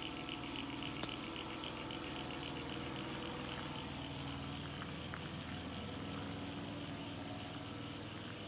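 Steady rush and gurgle of flowing floodwater.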